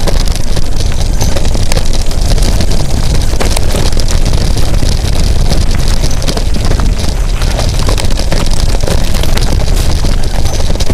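Steady rush of wind buffeting the microphone while a mountain bike rolls fast along a dirt trail, with scattered knocks and rattles as the bike goes over the rough ground.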